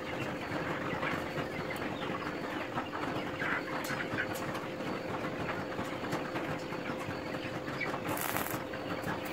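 Stick arc welding on steel rod: the electrode crackling and sizzling in an irregular, steady stream, with a steady hum underneath.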